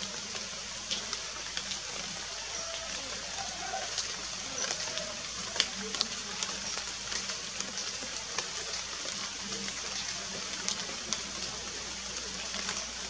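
Steady background hiss with scattered light clicks and crackles of dry leaf litter as a female bare-faced curassow walks and pecks over the forest floor. One click about halfway through stands out louder than the rest.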